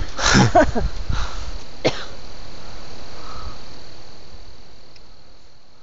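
A short cough-like voice sound, a sharp click just before two seconds in, then night insects keep up a steady high, thin drone that fades near the end.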